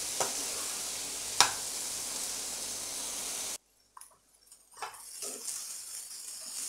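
Potato cubes and onion masala sizzling in oil in a nonstick pan while a slotted spatula stirs them, with two sharp spatula knocks in the first second and a half. A little past halfway the sound cuts out abruptly for about a second, then the sizzling and stirring return, quieter.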